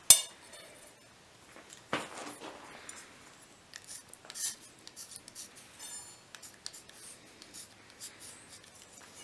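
Soapstone marker in a metal holder scratching across the steel face of an anvil, writing marks in short, irregular strokes. A single sharp metallic click with a brief ring opens it, the loudest sound here.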